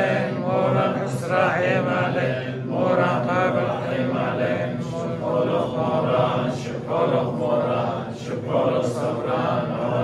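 Male voices chanting a Syriac Christian prayer, a continuous melodic liturgical chant with short pauses between phrases.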